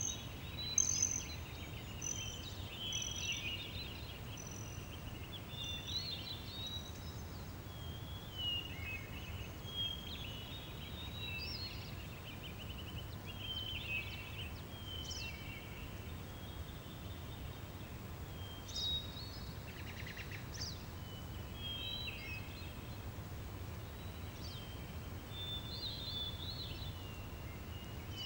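Meadow ambience: several small songbirds chirp and trill in short, overlapping phrases, over a steady low background rumble.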